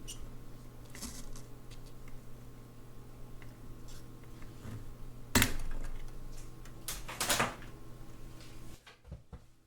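Small metal clicks and knocks of tools and parts being handled on a vintage Jaeger-LeCoultre alarm clock while its winding stem is removed. The loudest knock comes about halfway through and a quick pair follows about two seconds later, over a steady low hum that stops shortly before the end.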